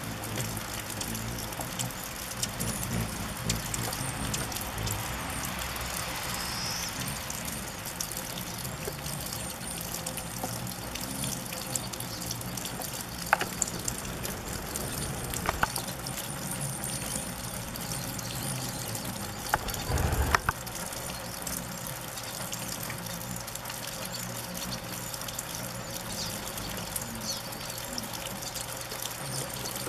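A swarm of rufous hummingbirds whirring around nectar feeders: a steady wash of wing buzz with scattered high chip calls and a few sharper clicks.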